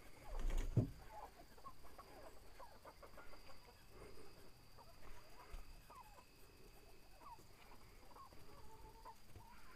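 Chickens clucking softly, short scattered calls from several birds. A thump about half a second in.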